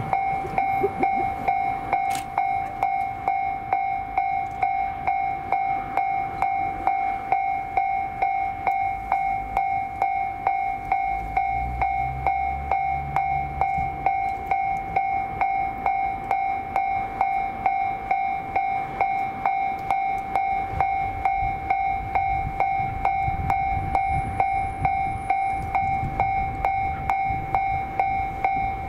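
Railway level-crossing alarm ringing steadily, a single pitched tone struck about twice a second, with the low rumble of a train passing underneath it around the middle and again in the second half.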